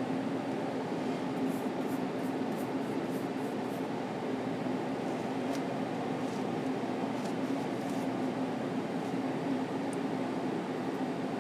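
Steady mechanical hum of room ventilation with a constant low drone. Faint light ticks of a paintbrush dabbing oil paint onto the linen panel come in a quick run of about three a second from about a second and a half in, then a few scattered.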